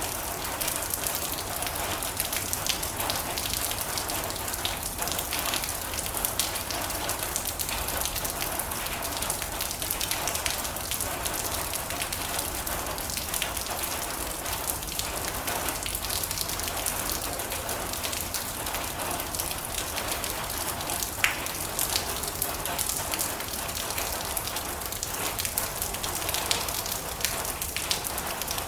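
Heavy rain falling steadily on a metal roof: a constant hiss dotted with many separate drop taps, one sharper tap about three-quarters of the way through.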